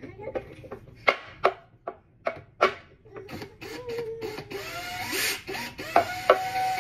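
Hands-on assembly of a children's wooden table: a few sharp clicks and knocks, then a longer scraping sound with wavering squeaks.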